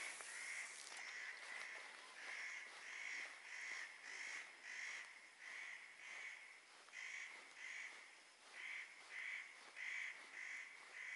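A bird calling over and over, a long run of short, pitched, faint calls at about two a second.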